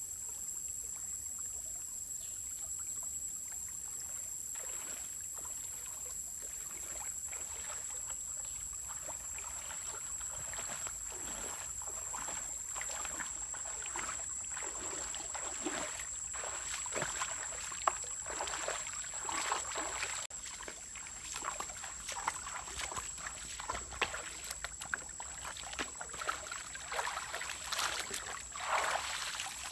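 Water splashing and sloshing as a person wades through a shallow stream, the irregular splashes coming more often and louder in the second half. Before the splashing starts there is only a steady outdoor hiss with a thin, constant high whine.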